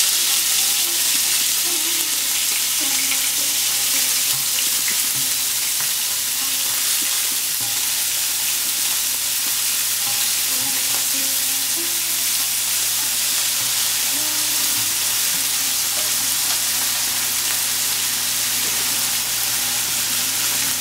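Small kajoli fish sizzling steadily as they shallow-fry in hot mustard oil in a nonstick frying pan.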